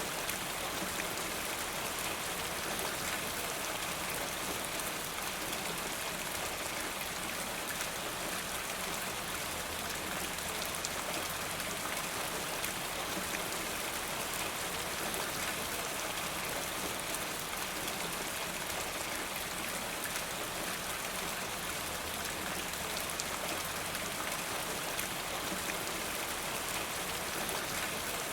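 Steady rain falling, an even hiss of many drops with fine scattered patter and no let-up.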